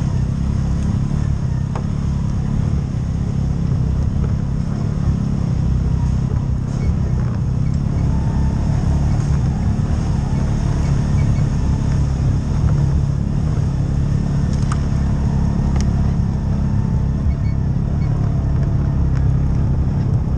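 CFMOTO UForce side-by-side's engine running steadily at trail speed, a low even drone, with a few faint ticks late on.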